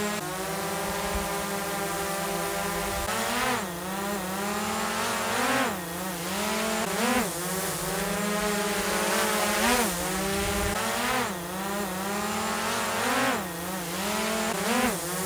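DJI Air 2S quadcopter's propellers whining, first at a steady pitch while hovering, then swooping up and down in pitch again and again from about three seconds in, as the motors speed up and slow down in climbs.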